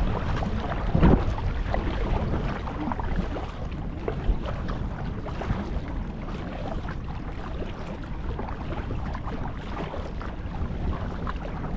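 Wind buffeting the microphone over water splashing and lapping against a plastic kayak's hull as it is paddled, louder in the first few seconds.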